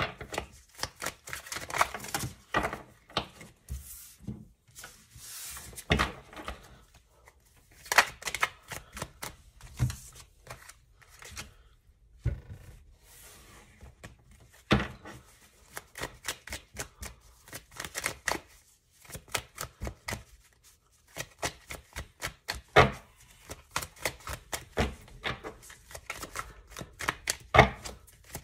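A tarot deck being shuffled by hand over a wooden table: a run of irregular light clicks and taps of cards, with several sharper knocks as the deck is squared or cards are set down.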